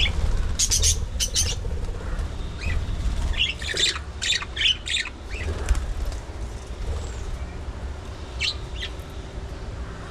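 Budgerigars in an aviary colony squawking and chirping in short bursts of sharp calls, in three clusters: early, in the middle and near the end. A steady low rumble runs underneath.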